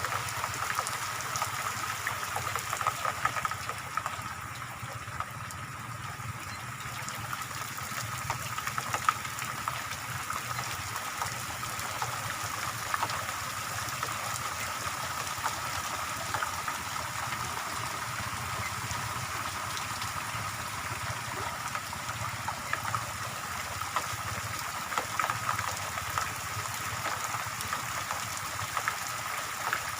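Steady rain falling, an even wash of sound with many small drop ticks through it.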